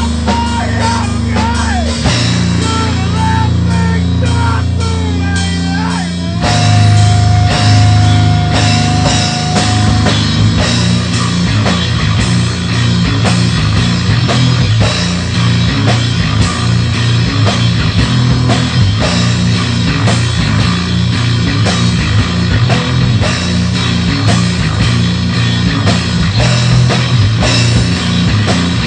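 Rough-draft recording of a heavy rock song with a drum kit and guitar. A bending melodic line gives way, about six seconds in, to a long held note, and steady, driving drumming follows.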